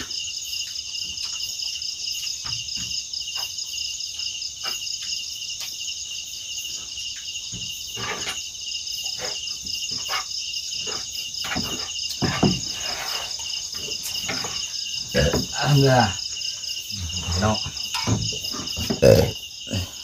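Night chorus of crickets and other insects, a steady pulsing trill in several high bands. Scattered small clicks and knocks and a few brief low vocal sounds come in over it, mostly in the second half.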